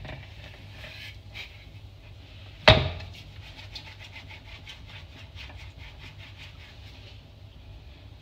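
One sharp, loud knock about a third of the way in. It is followed by a few seconds of quick, faint rubbing strokes, about five a second, as floury, dough-covered hands are rubbed together.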